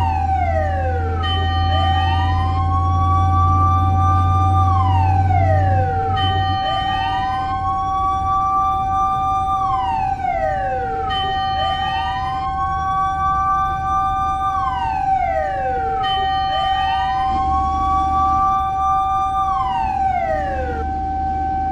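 Fire engine siren wailing: the pitch rises, holds, then falls, repeating about every four and a half seconds over a steady single tone. A low hum sits underneath, strongest in the first six seconds.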